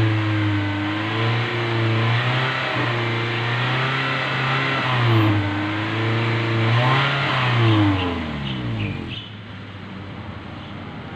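Toyota Innova engine and exhaust, revved up and down repeatedly to blow carbon out of the exhaust during a decarbonising treatment, sending out smoke; the revs fall away about eight seconds in.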